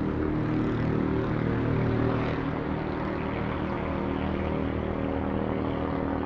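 Steady droning hum of many held low tones under a hiss, unchanging throughout.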